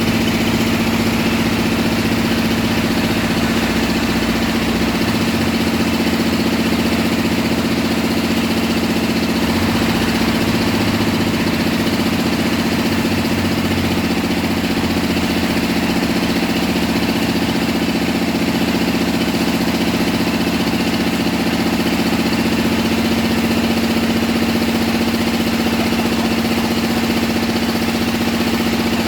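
Engine of a bored-pile drilling rig running steadily at a constant speed, with a strong, even drone.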